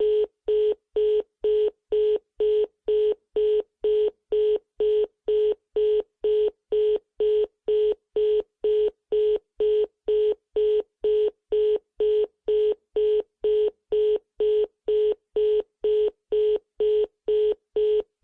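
Telephone busy (engaged) tone: a single steady tone beeping on and off about twice a second, with equal gaps of silence between the beeps.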